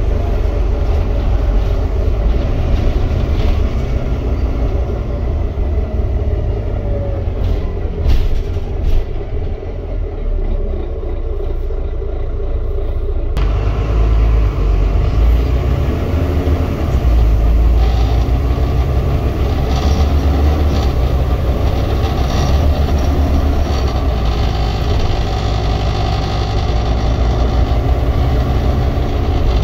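Volvo B9TL Wright Gemini double-decker bus on the move, heard from the upper deck: its six-cylinder diesel engine and road noise make a steady low rumble. The rumble grows louder after about 14 seconds in.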